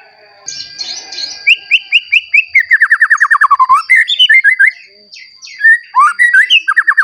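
Young white-rumped shama singing loudly: rapid trills of repeated sweeping whistled notes mixed with shorter chirps, broken by a brief pause about two-thirds in before the song resumes.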